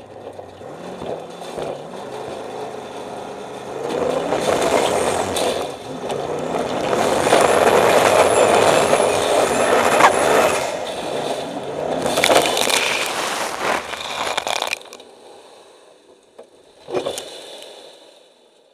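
Formula offroad buggy's engine heard from inside the car, revving hard in loud surges under heavy load on a steep climb, its pitch rising and falling. The loud running drops away suddenly about fifteen seconds in, and a single sharp knock follows a couple of seconds later.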